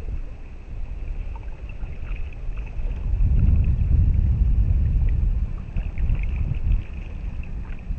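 Wind buffeting the microphone outdoors on open water: a low, blustery rumble that grows stronger about three seconds in and eases off again near the end.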